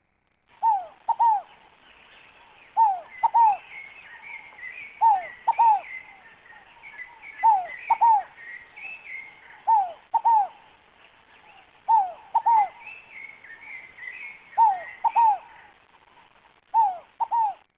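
Scaled dove (rolinha fogo-apagou) cooing: a repeated pair of falling hoots, about one pair every two seconds, eight pairs in all. Fainter high twittering from another bird runs underneath.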